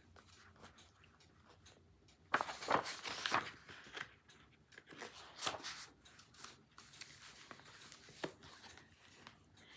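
Faint paper rustling in short bursts, typical of picture-book pages being handled and turned.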